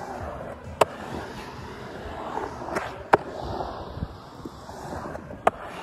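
Skateboard wheels rolling on concrete with a steady rough rumble, broken by four sharp clacks spread through, the loudest a little past halfway.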